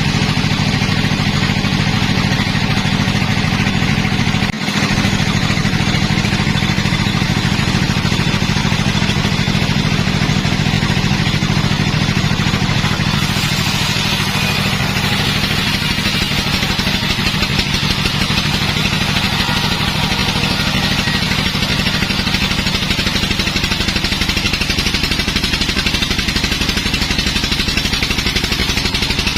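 Sawmill machinery running steadily with a loud, even engine-like drone. About halfway through, a harsher, higher hiss joins in, as of the saw cutting into wood.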